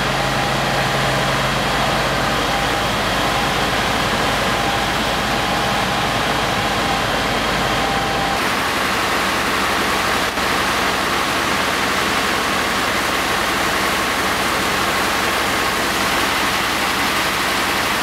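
Fire engines running steadily at the scene of a large fire, under a dense, steady rushing noise. The engine tones change abruptly about eight seconds in.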